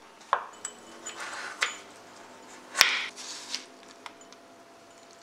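Kitchen knife chopping and scraping shaved jaggery on a wooden cutting board: a handful of sharp taps and short scrapes. The loudest clack comes near the middle.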